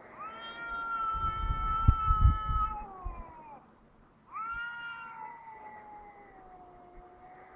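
Two black-and-white cats caterwauling in a face-off: two long, drawn-out yowls that sound like a crying baby, each held on one pitch and then sliding down, with a short gap between them. Two low thumps come a couple of seconds in, the loudest moments.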